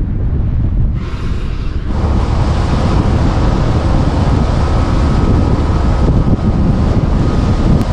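Wind buffeting the microphone of a moving motorcycle, a steady loud rush with deep rumble and road and engine noise underneath.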